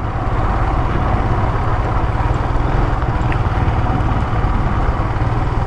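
Royal Enfield motorcycle running steadily while riding, heard from a helmet-mounted mic, with a low engine rumble under a rush of wind coming into the helmet.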